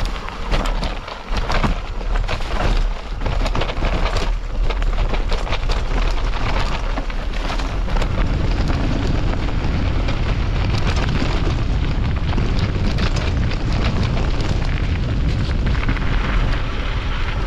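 Heavy wind rumble on the microphone, with rattling knocks dense in the first few seconds, as from a mountain bike ridden over rough, rocky trail.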